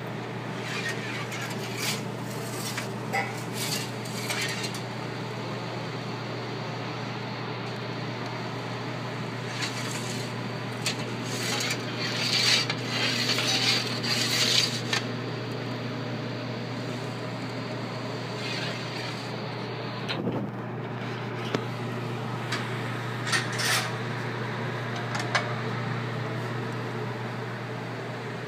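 Kitchen clatter of metal and dishes over a steady low hum. Short clinks come scattered through, with a louder, busier run of clattering and scraping about twelve seconds in.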